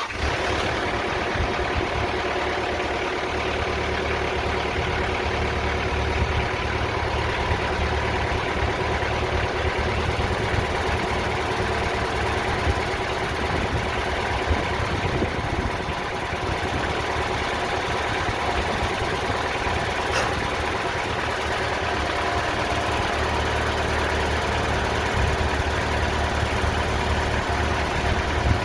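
Diesel-powered TimberKing 2000 bandsaw sawmill running steadily, its band blade cutting a slab from a spalted ash log under water lubrication.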